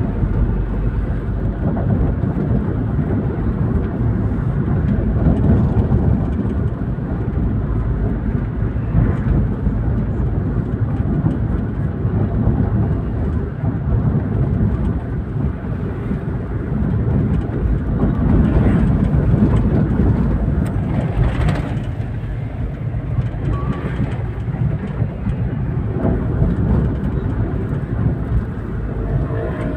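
Car driving on the road: the steady low rumble of a four-cylinder engine and tyre noise, swelling louder about two-thirds of the way through.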